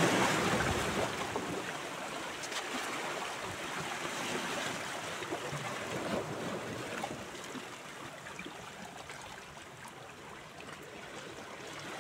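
Small sea waves washing and splashing against shoreline rocks, loudest at the start and then easing off.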